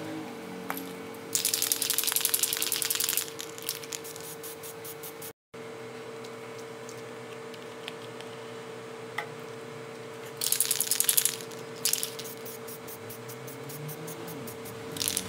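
Aerosol spray-paint can being shaken and sprayed: about two seconds of quick rattling and hissing, then a shorter burst about ten seconds in and a brief one at the end, over a steady low hum.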